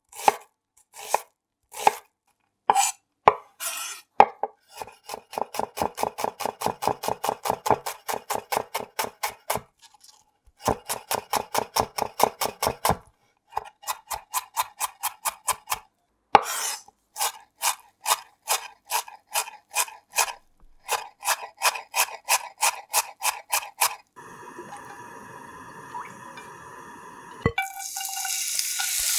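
Santoku knife rapidly chopping onion on a wooden cutting board: runs of quick chops, about four a second, with short pauses between them. Near the end, chopped onion tipped into a frying pan of hot oil starts to sizzle.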